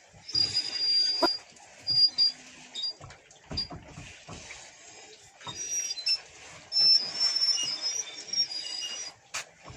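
A shrill, terrible whistle from the rear right brake drum of a Lada 2104 as the drum turns backward, coming and going in several stretches, with a few knocks in between.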